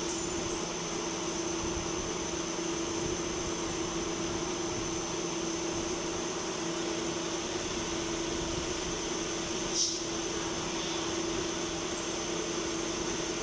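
Steady hum of machining-shop machinery, with a constant mid-pitched tone and a thin high whine over it, and one short click about ten seconds in.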